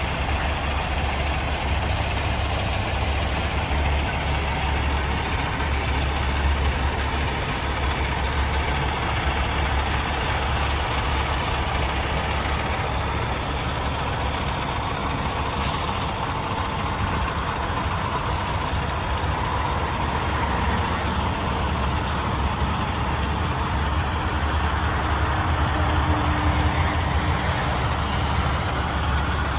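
Cummins X15 diesel engine of a Peterbilt 389 semi tractor idling steadily.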